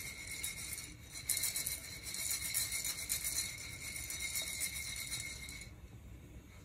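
Coffee beans rattling inside a Nuvo handheld ceramic roaster as it is shaken over a gas flame, with a faint steady high tone underneath; both stop near the end.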